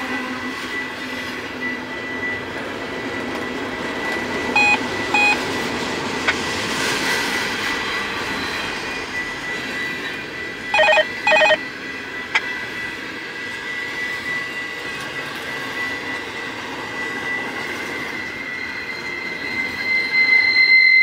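Freight train rolling past, a steady rumble with a thin, steady high wheel squeal that grows louder near the end. Two pairs of short beeps sound over it, a quieter pair about five seconds in and a louder pair about eleven seconds in.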